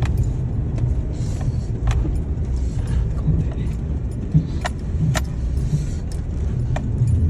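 Car driving over a snowy road, heard from inside: a steady low road rumble with scattered light clicks and rattles.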